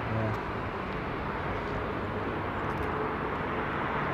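Boeing 787-9 jet engines running at taxi power as the airliner rolls past: a steady rushing hum with a faint steady whine.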